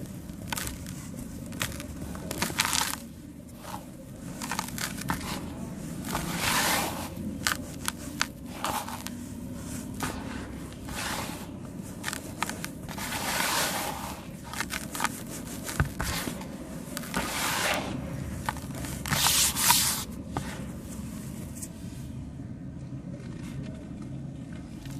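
Pieces of sand cement being crushed and crumbling: irregular gritty crunches and crackles with scattered sharp clicks, several louder crunches standing out.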